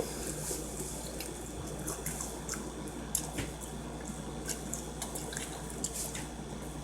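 Wet chewing and mouth smacking while eating sushi close to the microphone: many short, irregular soft clicks and smacks.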